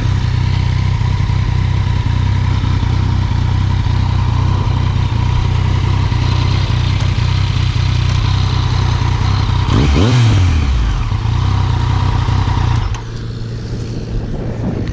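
Yamaha FZ-09's inline-three engine running through an Akrapovic carbon-fibre exhaust at a steady riding pace. Its pitch falls briefly about ten seconds in, and the engine sound drops noticeably quieter near the end.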